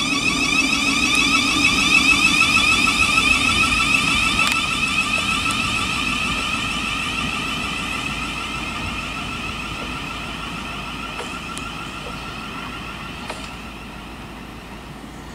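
Electric train whining: several steady high tones with a fast warble over a low rumble. It is loudest about two seconds in, then fades steadily away.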